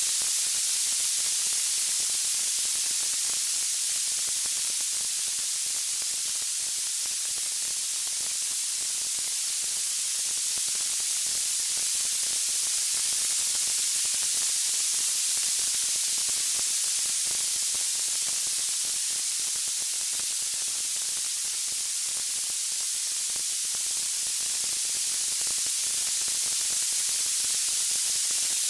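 Steady, bright hiss of even noise with no distinct pops or tones: the white-noise bed of a wood-fire sleep sound, its high end much stronger than its low.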